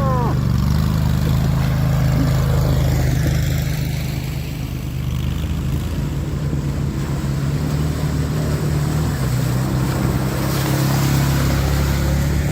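Engine of a CFMoto ZForce 950 HO EX side-by-side running steadily while driving, over a continuous rushing noise, with the engine easing off briefly partway through. A short falling chirp sounds right at the start.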